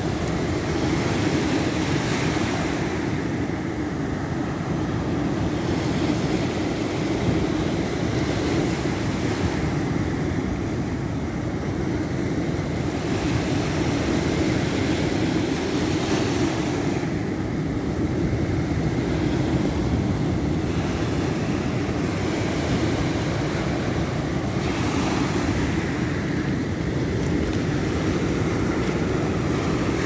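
Rough surf breaking on a pebble beach, a steady rush of water with a hiss that swells every six or seven seconds as waves wash up over the shingle. Wind noise on the microphone adds a low rumble.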